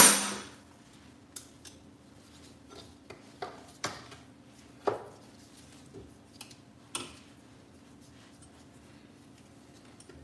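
Metal hand tools clanking and clinking against a motorcycle engine while wrenching on its bolts: one loud clank at the very start, then a scattered string of lighter clinks and taps.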